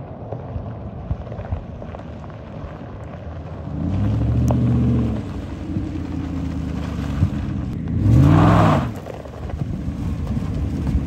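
Lifted Chevrolet Silverado pickup's engine running under a steady rumble, revved up and back down twice, once about four seconds in and again, louder, about eight seconds in.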